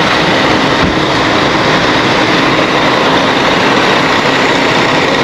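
Bus engine idling steadily: a loud, even rumble with a faint steady whine over it.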